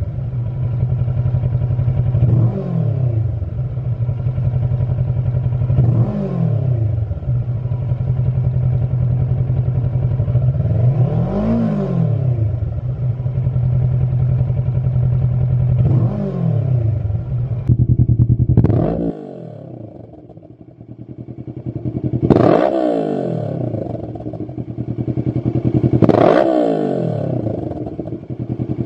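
Kawasaki Versys 650 parallel-twin idling, with the throttle blipped every few seconds so the revs rise and fall back, through the stock silencer. After a short break about two-thirds of the way in, the same engine idles and is blipped twice more through a Lextek SP8C carbon aftermarket silencer, with a sharper, brighter tone.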